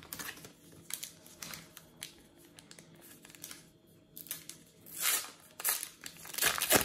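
Panini Adrenalyn XL trading card packet handled and torn open by hand: soft rustling at first, then louder crinkling and tearing of the wrapper about five seconds in and again near the end as the cards are pulled out.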